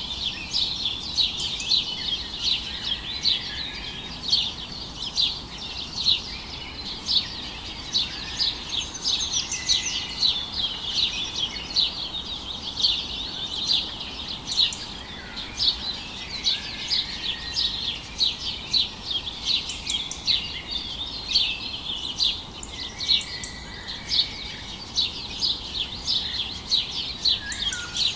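Small birds chirping continuously: a steady stream of quick, high chirps.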